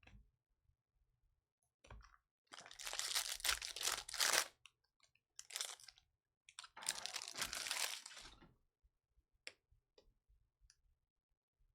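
Trading-card pack wrappers being torn open and crinkled in two long rustling bursts, followed by a few light clicks of cards being handled.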